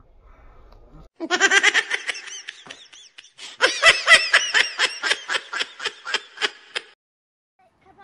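A baby laughing in two bouts: a first burst of giggles, then a longer string of quick, high-pitched laughs that fade out.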